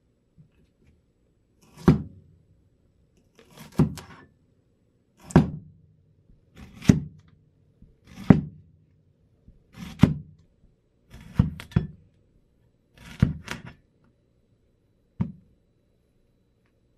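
Steel halberd axe head chopping through a cucumber and striking the wooden workbench: about nine chops, roughly one every second and a half, a few of them doubled.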